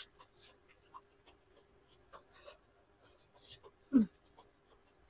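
Close-up eating sounds: soft wet chewing and lip-smacking clicks while eating rice and curry by hand. About four seconds in comes one short, loud vocal sound that falls in pitch.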